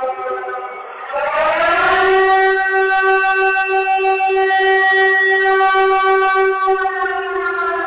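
Civil defense siren wail, used as the Siren Head creature's call. It sweeps up sharply about a second in, holds a steady, slightly pulsing multi-note tone for about five seconds, then begins to fall near the end.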